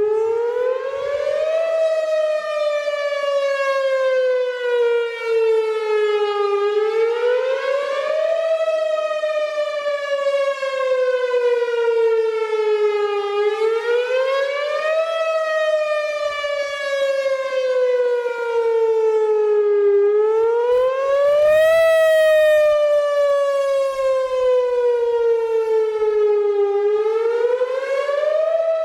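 Whelen Vortex electronic outdoor warning siren sounding a test wail: a loud tone that rises quickly, then falls slowly, repeating about every six to seven seconds.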